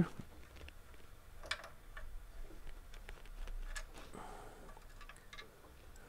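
A handful of faint, scattered clicks and taps from a screwdriver working out the small self-tapping screws that hold the CPU fan to the heatsink of a Dell Optiplex 3040.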